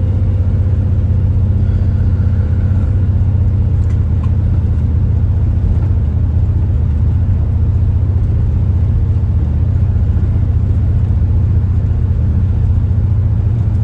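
Camper motorhome driving along at a steady speed, its engine and road noise making a steady low drone heard from inside the cab.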